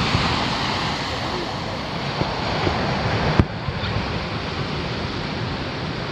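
Steady wash of surf on the beach, with a single sharp bang of a firework burst about three and a half seconds in and a few fainter pops before it.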